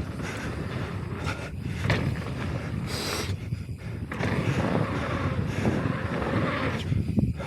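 Mountain bike descending a dirt trail: wind rushing over the microphone together with tyre noise on loose dirt, broken by frequent knocks and rattles over bumps and a brief hiss about three seconds in.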